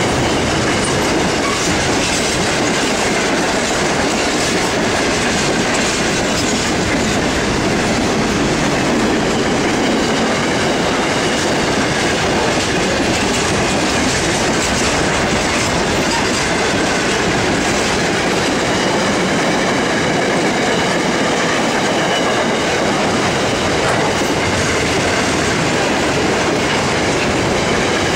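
Freight train wagons rolling past at speed: a steady, continuous rumble and clatter of steel wheels on the rails, with a faint high ringing over it.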